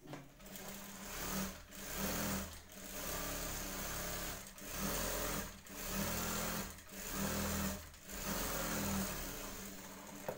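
Industrial sewing machine stitching a fabric seam in about seven short runs, stopping briefly between them as the cloth is guided and repositioned.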